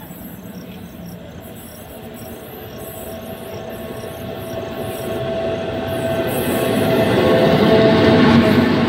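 Electric freight locomotive approaching and passing at speed: a rumble and a steady whine that grow steadily louder, loudest as it draws level near the end.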